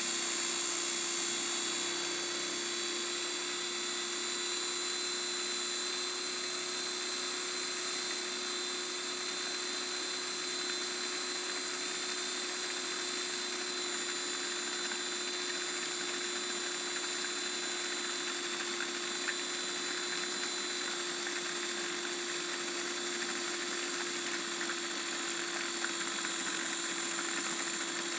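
KitchenAid 5KFC3516 mini food processor's electric motor running with a steady whine, its blade spinning through egg yolk, lemon juice and mustard while oil drips in through the lid to emulsify into mayonnaise.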